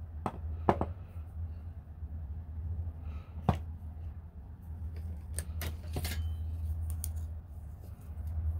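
Small sharp clicks and taps of metal craft pliers and wire being handled and set down on a wooden tabletop, a few scattered over several seconds, over a steady low hum.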